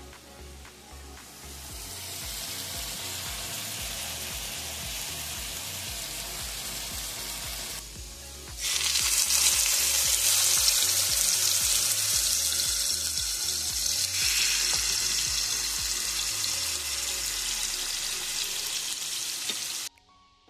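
Chicken sizzling on an electric griddle. After a cut about eight seconds in, a seasoned steak frying louder in hot oil in a nonstick pan. The sizzle stops abruptly near the end.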